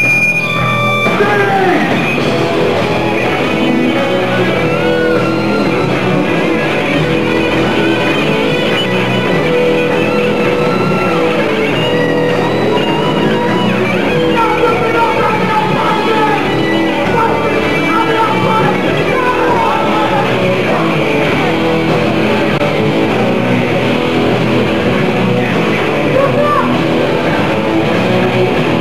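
Loud live heavy metal band playing: electric guitar, bass guitar and drums. A high held tone sounds at the start and stops about a second in.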